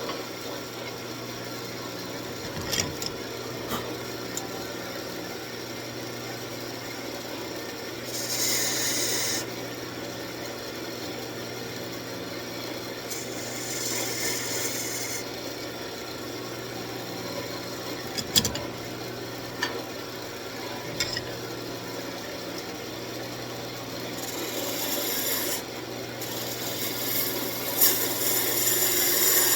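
Wood lathe motor humming steadily while a turning tool cuts spinning walnut, giving stretches of hissing scrape about 8 seconds in, around 13 to 15 seconds, and again from about 24 seconds, the last growing louder. A few sharp clicks come in between.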